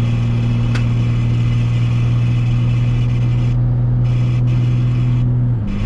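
Steady static hiss from the wireless backup-camera monitor's speaker, which is wind noise picked up by the camera, over the steady drone of the pickup's engine in the cab. Near the end the engine note steps down in pitch.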